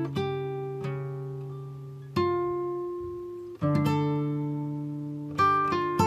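Background music: an acoustic guitar playing slow plucked notes and chords, each struck every second or two and left to ring out and fade.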